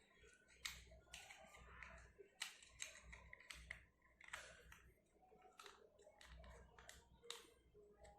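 Faint, irregular small clicks and taps of hard plastic being handled as a mobile charger's case is fitted and hot-glued shut.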